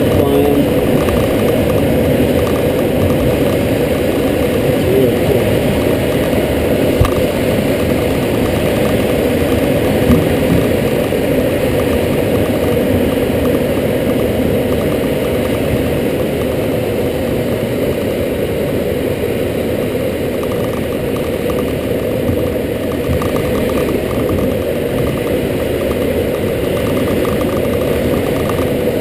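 Steady rushing airflow over a glider's canopy and fuselage in flight, picked up inside the cockpit.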